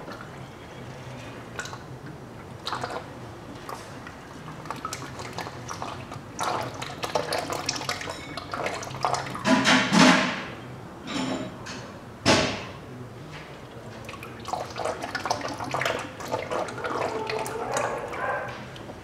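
Old power steering fluid spurting and splashing out of a disconnected hose into a drain container as the steering wheel is turned lock to lock with the engine off, pushing the fluid out of the steering rack. The splashes come irregularly, the loudest about ten seconds in.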